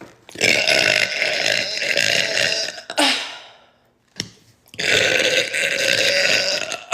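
A woman burping: two long, loud burps, each lasting about two and a half seconds, with a pause of a second or so between them.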